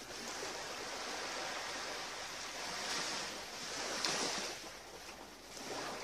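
Small sea waves washing against a rocky shore, a steady wash that swells a little about three and four seconds in, then eases.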